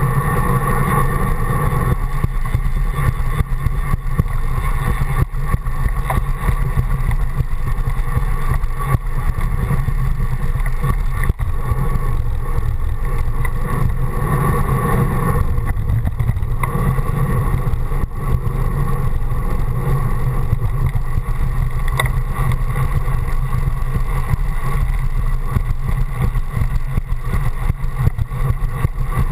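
Steady wind rush and road rumble picked up by a handlebar-mounted GoPro on a moving bicycle, mostly a low, even rumble with no let-up.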